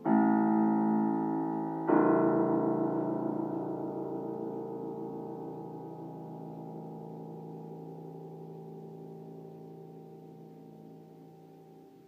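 Piano playing two chords: one struck at the start, a fuller one about two seconds in that is held and left to ring, fading slowly away.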